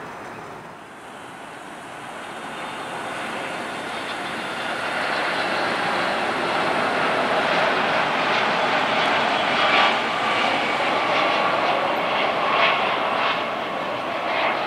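Jet engine noise of a Boeing 757-200 airliner on final approach, rising over the first several seconds as it nears, then holding loud.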